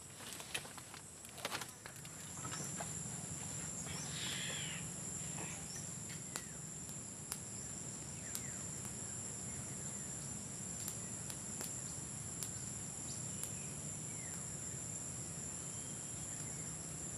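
A steady high-pitched drone of insects, with scattered short bird chirps. A few knocks and rustles come in the first two seconds, and a low steady hum runs underneath from about two seconds in.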